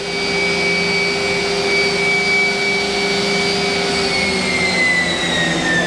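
Mazak Nexus 510C-II machining center's spindle whining at its maximum 12,000 RPM, a steady high-pitched tone over an even mechanical hum. About three seconds in the whine begins to fall slowly in pitch as the spindle slows down.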